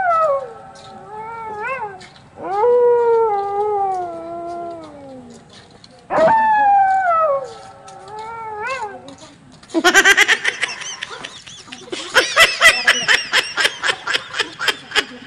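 Long, mournful howls, each sliding down in pitch, heard twice. From about ten seconds in they give way to rapid, shrill laughter.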